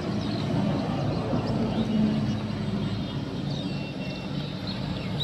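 A motor engine running steadily with a low drone that swells a little about two seconds in.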